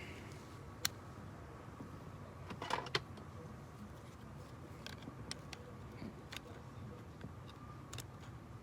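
Scattered light clicks and taps of small parts and hand tools being handled during a car door repair, with a sharper pair of clicks about three seconds in, over a faint steady hum.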